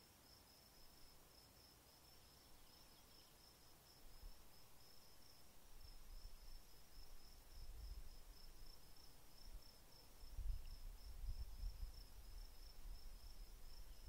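Faint, high-pitched, rapidly pulsing trill of a cricket-like insect, going on steadily. From about four seconds in, a low rumble comes and goes, loudest a little past ten seconds in.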